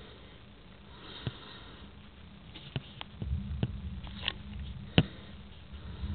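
Night thunderstorm: a low rumble of thunder builds about three seconds in, with scattered sharp ticks of dripping rain. The loudest tick comes about five seconds in.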